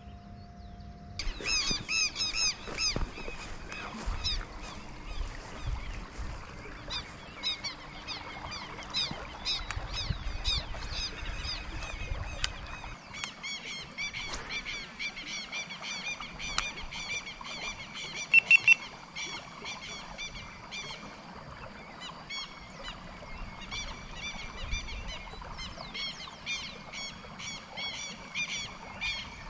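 Outdoor chorus of many small animals giving short, rapidly repeated chirping calls over a faint steady background noise, with a few louder calls about two-thirds of the way through.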